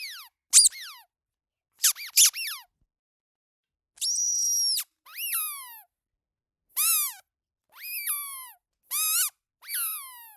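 Rubber squeaky dog toy squeezed again and again, giving a dozen or so short, high squeaks with silence between them. Most squeaks drop in pitch; one about four seconds in is longer and held steady.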